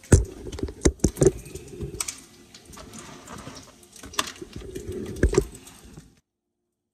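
Handling noise from a phone being carried against clothing: the microphone rubs and knocks on fabric, giving irregular thumps and clicks over a rustle. It cuts off suddenly about six seconds in.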